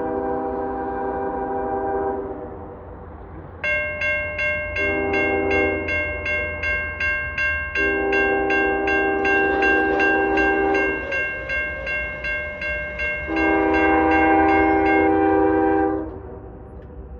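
Locomotive air horn blowing a series of loud chord blasts: one ends about 2 seconds in, then a short blast and two long ones. From about 3.5 seconds a bell rings rapidly, about three strokes a second, over the blasts. Everything stops together about 16 seconds in.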